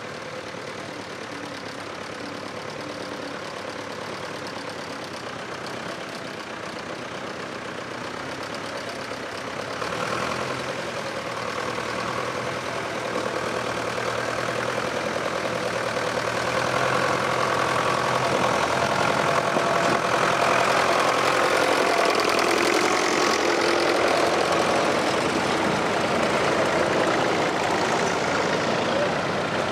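Several vintage tractor engines, among them a blue Fordson and a grey Ferguson, chugging as the tractors climb out of a ford and drive past one after another. The running grows louder about a third of the way in and is loudest near the end as a tractor passes close.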